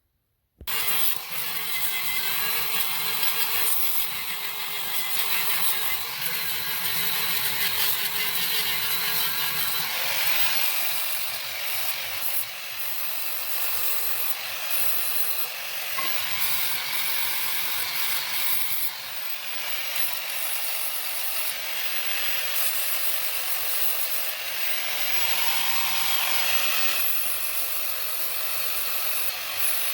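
Angle grinder running against a bus brake drum, grinding its surface clean: a steady motor tone under a harsh grinding hiss that starts about half a second in and turns rougher and more uneven about ten seconds in.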